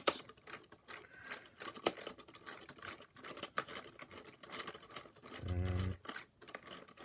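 Lego one-cylinder vacuum engine and Lego Lenco-style transmission clattering with fast, irregular plastic clicks as the gear levers are shifted. The loud rev that a downshift should give does not come: the transmission is not working properly. A brief hum about five and a half seconds in.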